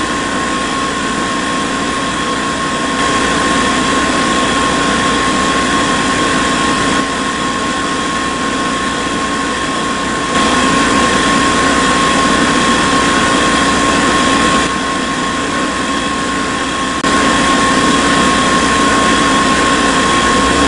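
A small electric motor running steadily with a high, constant whine over a noisy hum, its loudness jumping abruptly up and down several times.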